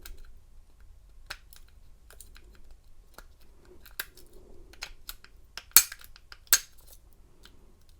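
Steel lock pick working the pins inside a disc-style storage padlock: scattered light metallic ticks and clicks, with two louder sharp clicks a little before two-thirds of the way in.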